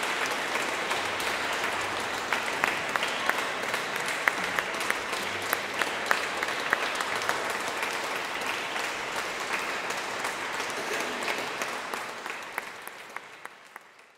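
Audience applauding: a dense, steady patter of many hands clapping, with a few sharper individual claps standing out, fading away over the last two seconds.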